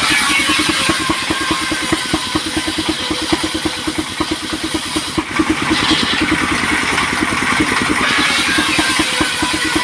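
Sawmill machinery running with a fast, steady, engine-like pulsing, and bursts of hissing noise at the start and again around six seconds in.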